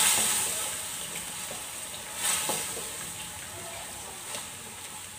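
Tomato paste sizzling as it fries in hot oil with onion paste, stirred with a wooden spatula. The sizzle surges at the start and again about two seconds in, then settles to a steadier hiss.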